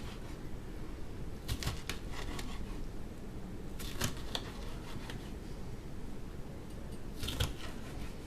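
Kitchen knife cutting red sweet peppers into large pieces on a cutting board: three short groups of clicks and taps a few seconds apart, over a steady low hum.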